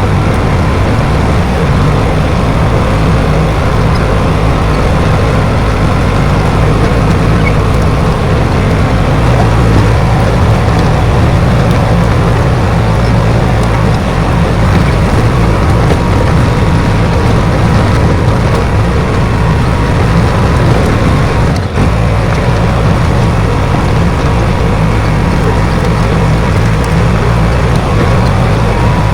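Bulldozer's diesel engine running steadily, a deep rumble with a faint steady whine above it and a brief drop in level about three quarters of the way through.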